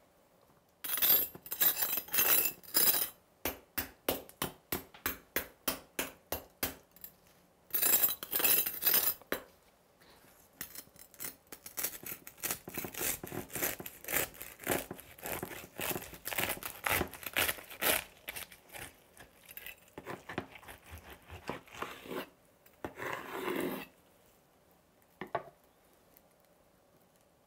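A knife sawing through the hard, crispy crackling skin of a roasted pork belly: loud crunching in several spells, with a run of quick sawing strokes about three a second near the start.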